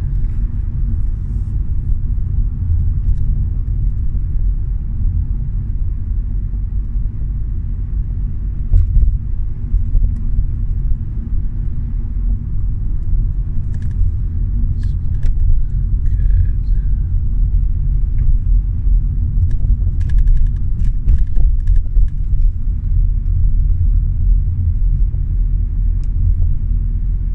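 Steady low rumble of a moving car heard from inside the cabin: engine and road noise while driving along, with a few faint clicks now and then.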